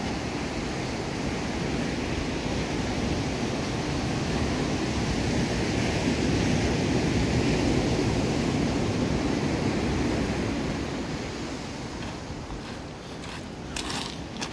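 Ocean surf breaking on a cobble beach: a steady rush that swells in the middle and then eases off. Near the end come a few short crunches of footsteps on the beach stones.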